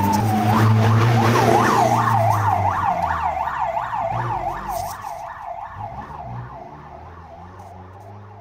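Police car siren in a fast yelp, its pitch sweeping up and down about three times a second, starting abruptly with one falling glide and then fading steadily. A low hum sits underneath for the first few seconds.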